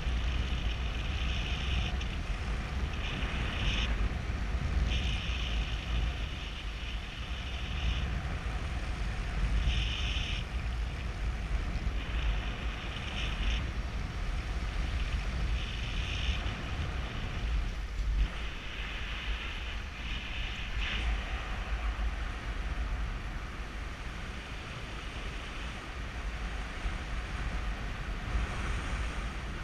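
Wind buffeting the microphone of a paraglider in flight: a steady low rumble, with a higher hiss that swells and drops away every second or two.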